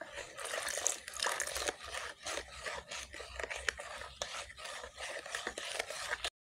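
Plastic spoon stirring granulated sugar into coconut milk in a plastic bowl, scraping round the bottom in quick, irregular strokes while the sugar dissolves. The sound cuts off abruptly just before the end.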